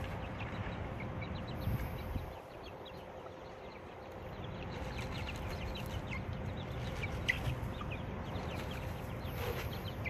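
Young meat chickens peeping and clucking softly as they feed, short high calls scattered throughout with a few louder ones past the middle, over a steady background hiss.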